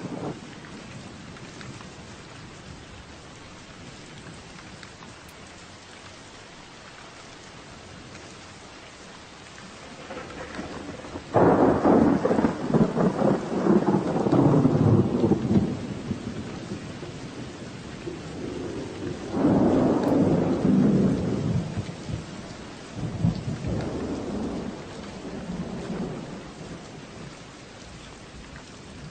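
Steady rain with rolling thunder: a sudden loud thunderclap about eleven seconds in rumbles on for several seconds, a second peal follows about twenty seconds in, then fainter rumbles.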